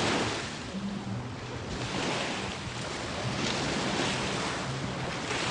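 Ocean surf washing onto the beach, swelling loudest about three and a half seconds in and again near the end, with wind buffeting the microphone.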